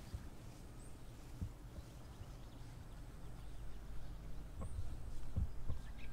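Scattered soft footsteps and thuds of a person moving through tall meadow weeds, over a steady low rumble. Two short high bird chirps come about a second in and near the end.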